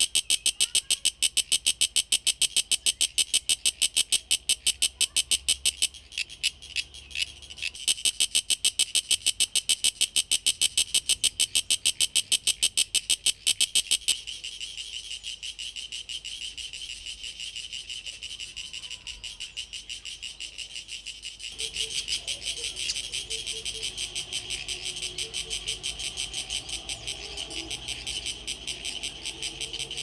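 Sulphogaeana cicada calling: a fast chirruping train of clicks from its tymbal organs, several a second. It breaks off briefly about six seconds in, turns quieter about fourteen seconds in, and grows louder again about twenty-two seconds in.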